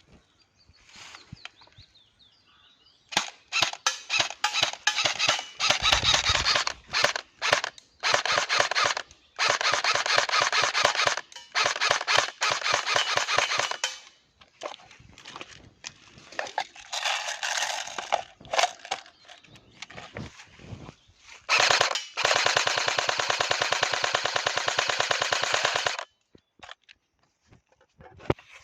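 Double Bell 813S airsoft carbine firing: single shots and short bursts at first, then longer fully automatic bursts, the longest running about four seconds near the end.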